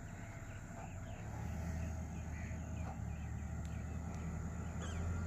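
Suzuki Jimny's 1.3-litre engine running at low revs as the 4x4 creeps through soft mud and sand, a steady low drone that grows louder a little over a second in. Birds chirp over it.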